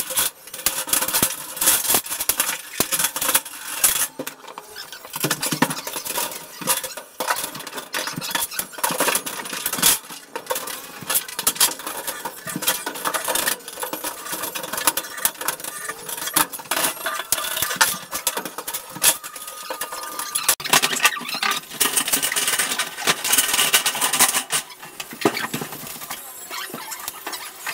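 Light-gauge galvanized steel studs clattering and scraping as they are handled and fitted into the partition's floor and ceiling tracks: a dense, irregular run of metallic clicks and clanks.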